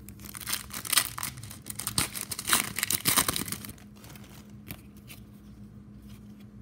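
An Upper Deck hockey card pack's foil wrapper being torn open and crinkled for about three and a half seconds, then a few faint rustles and clicks.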